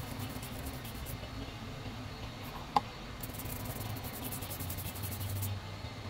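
Rapid scratchy strokes of a brush scrubbing flux residue off a phone logic board, in two spells, over a low steady hum. One sharp click comes near the middle.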